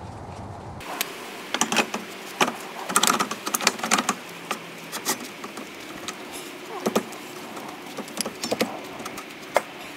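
Irregular metal clicks, clinks and knocks as a rusty brake drum and four-stud hub are handled and pushed onto the rear axle shaft, thickest in the first few seconds.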